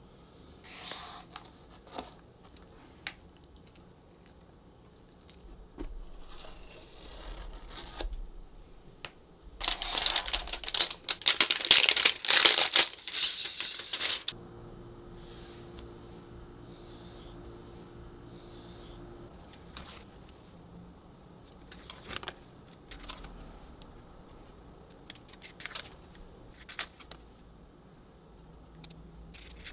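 Unboxing handling noise: light taps and clicks, then several seconds of loud crinkling and tearing of a clear plastic sleeve around a spiral-bound desk calendar. After that come scattered light clicks as the calendar is handled and its pages turned.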